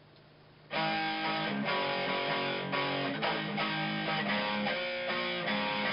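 Intro music: strummed guitar chords, starting abruptly about three-quarters of a second in after a faint low hum.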